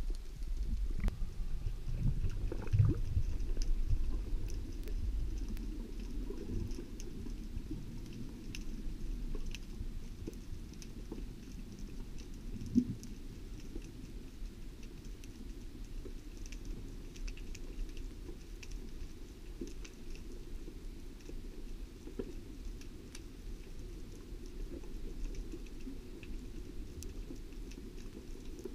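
Underwater ambience heard through a camera's waterproof housing: a steady muffled rumble of water movement with faint scattered crackling clicks. Louder dull thumps in the first few seconds and a single sharp knock about halfway through.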